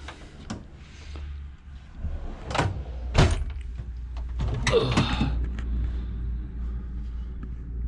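Steel tool-cabinet drawers, loaded with tools, sliding on their runners and shutting, with a few sharp clunks, the loudest about three seconds in, and a longer rattle about five seconds in.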